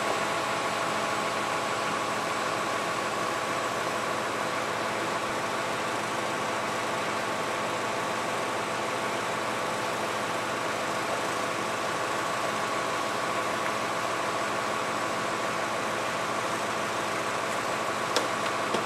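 An engine idling steadily: a constant hum with several steady tones over a rushing hiss, unchanging throughout, with a faint click near the end.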